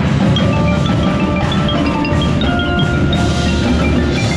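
Xylophone played in quick runs of short, high notes with ball mallets, over a marching drumline playing loudly along with it.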